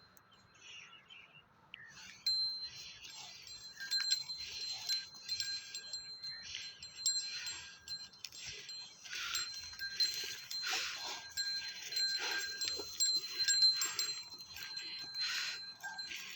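Small metal bells jingling in uneven shakes, with a steady high ring held under them. It starts about two seconds in.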